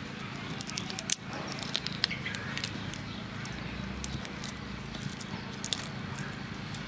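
Shells of cooked shrimp cracking and crackling as fingers peel them: irregular sharp clicks and snaps, the loudest about a second in, over a steady low hum.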